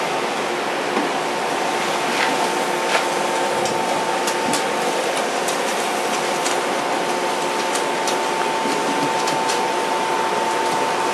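Forced air rushing through the blast pipes into a bloomery furnace's tuyeres, a steady blowing noise with a constant whistling tone, and a few faint clicks over it.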